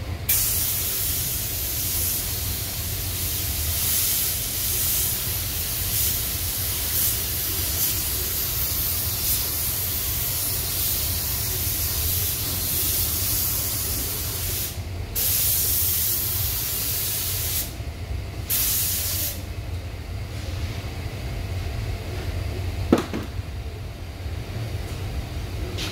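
Compressed-air spray gun with a gravity-feed cup spraying a coat of primer onto a car panel: a steady hiss that comes in passes, breaks off briefly twice, and stops after about nineteen seconds. A low steady rumble runs underneath, and a single sharp click sounds near the end.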